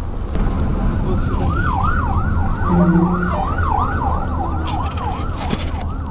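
Emergency vehicle siren on a fast yelp, rising and falling about three times a second, starting about a second in. It sounds over the steady low road rumble of a car crawling in traffic, heard from inside the car.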